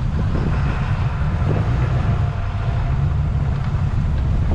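Boat under way at slow speed: a steady low rumble of its engine, mixed with wind buffeting the microphone.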